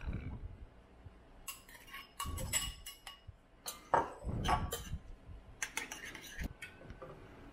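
Metal spoon clinking and scraping against ceramic bowls as kidney beans are scooped out of one bowl onto rice in another and stirred in. The clinks come in three bunches, the loudest about four seconds in.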